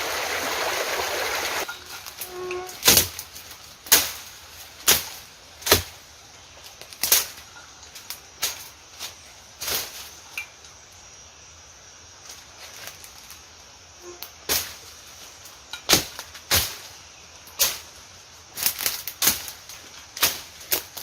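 Flowing stream water for the first second and a half, then a series of sharp chopping strikes, irregular and roughly one a second, with a quicker run near the end: a machete hacking through jungle vegetation to open a trail.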